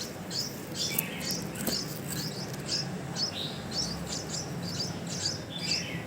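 Red-whiskered bulbul chick calling: a quick run of short, high chirps, about three a second, each a fast downward sweep. These are the calls of a hungry young bird waiting to be fed.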